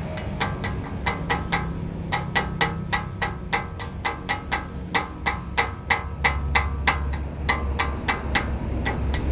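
Rapid, steady metallic tapping, about four or five ringing strikes a second, as of a hammer on metal. A low steady hum sits underneath and grows stronger about six seconds in.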